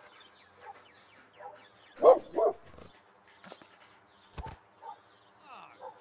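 A dog barking: two short, loud barks about two seconds in, with softer yelps scattered around them and a couple of sharp knocks.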